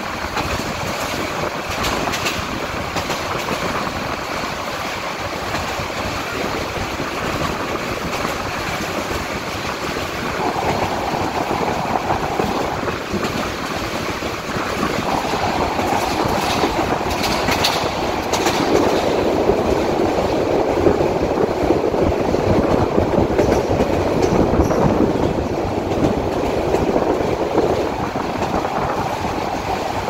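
Railway train running along the track, a steady rumble and rattle that grows louder in the second half.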